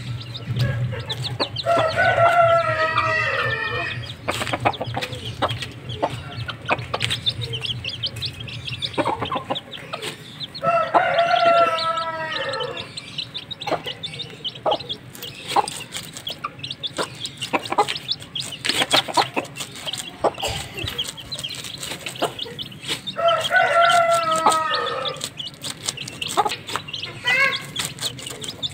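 Chickens: a rooster crows three times, about ten seconds apart, over the steady short peeping of young chicks feeding with their hen.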